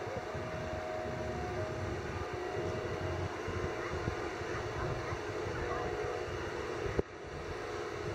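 Hitachi 350 tracked excavator working under load as it lifts a full bucket of sand and swings it over a tipper truck: a steady diesel rumble with a wavering whine. A single sharp knock comes near the end.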